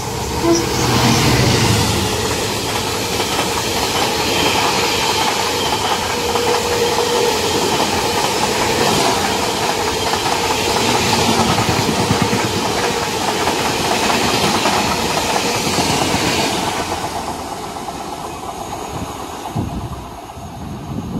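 GBRf Class 66 diesel locomotive passing at speed, hauling a long rake of engineers' wagons. The engine is heard briefly, then a steady rumble and clatter of wagon wheels on the rails, fading over the last few seconds as the train draws away.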